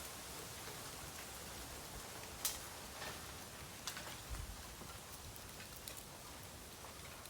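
Bamboo burning in an open fire: a steady hiss with scattered crackles and one sharp pop about two and a half seconds in.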